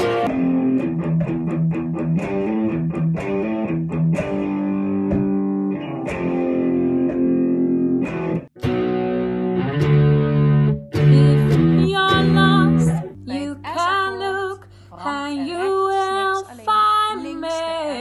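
Electric guitar and keyboard playing chords together. About thirteen seconds in, the sound changes to a singing voice over a low steady hum.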